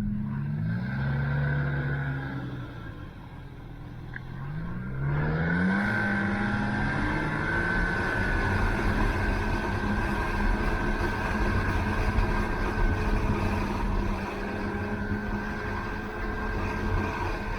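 Snowmobile engine revving up, its pitch climbing, then running steadily at speed with a rushing noise from about five seconds in.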